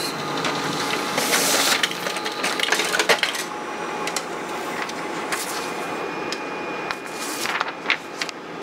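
Office multifunction laser printer/copier printing a run of pages: a steady mechanical whir with clicks and short hissing rushes about every two seconds as sheets feed through.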